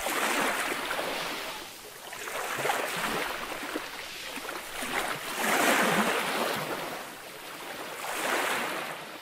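Rushing, splashing water sound effects from an animated logo intro, swelling and fading about four times before dying away near the end.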